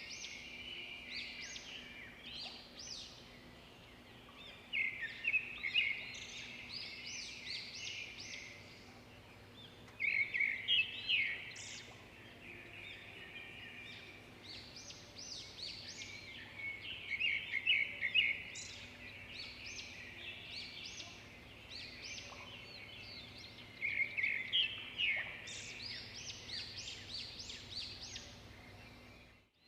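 Small birds chirping in quick trilled phrases, coming in repeated bursts, over a faint steady low hum.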